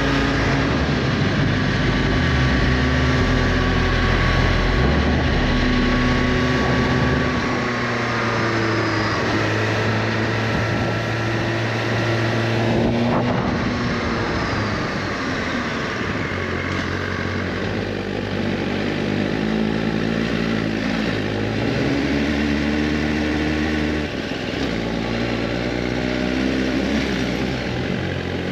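Suzuki GSX-R1000R inline-four engine running under way, with steady wind rush over the rider and camera.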